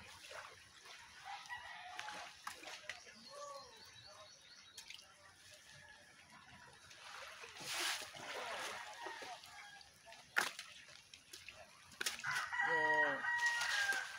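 A rooster crowing, loudest near the end, with fainter calls earlier on and a sharp click about ten seconds in.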